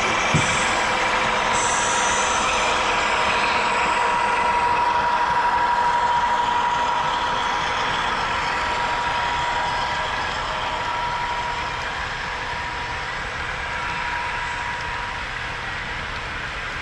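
Sound-equipped HO scale BNSF diesel locomotives, their LokSound decoders playing a steady diesel engine rumble through the models' small speakers, with a single click about half a second in. The sound grows somewhat quieter over the second half.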